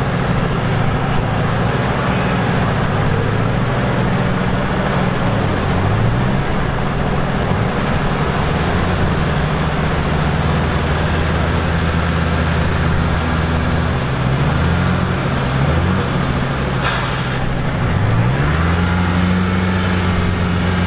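Off-road vehicle engine revving hard, its pitch dropping and climbing again several times, as a Niva-bodied swamp buggy on big low-pressure tyres struggles through slippery mud. The tyres lack the tread to grip.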